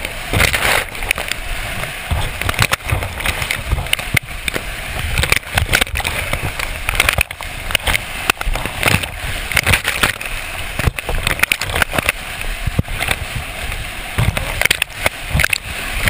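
Big whitewater rapids churning and crashing right over a GoPro camera: a loud, constant rush of water broken by many sudden sharp splashes and hits on the camera, the loudness surging up and down throughout.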